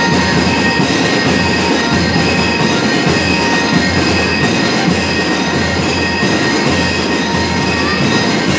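School lyre and drum band playing: metal bell lyres ringing in sustained tones over a dense beat of marching drums.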